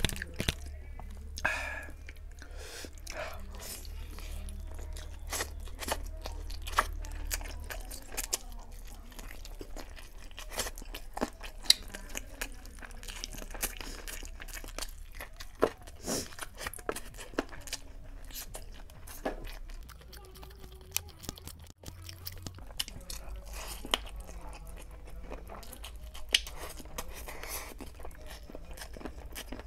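Close-miked chewing of chicken biryani eaten by hand, with many irregular clicks and smacks from the mouth over a low steady hum.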